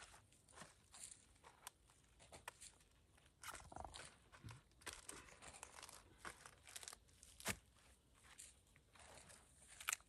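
Faint, irregular crunching footsteps of someone walking a rough village path.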